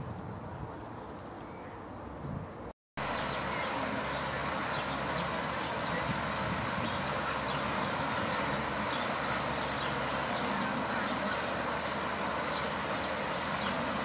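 A male common blackbird foraging in dry leaf litter: scattered light rustles and ticks of leaves being flicked, over a steady background hiss. About a second in, a short high descending bird chirp.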